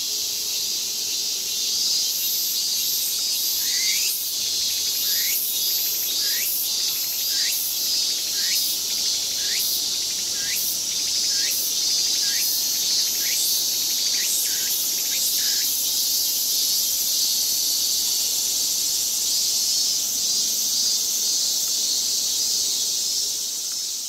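A chorus of cicadas buzzing steadily at a high pitch. From about four seconds in to about two-thirds through, a short falling call repeats over it roughly every three-quarters of a second.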